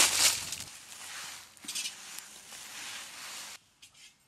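Dried red chillies poured in with a dry rustling that fades over the first second, then a quieter rustling hiss that cuts off abruptly about three and a half seconds in.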